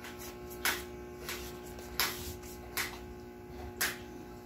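Footsteps in rubber flip-flops: five separate sharp slaps on a hard floor, unevenly spaced, over a steady electrical hum.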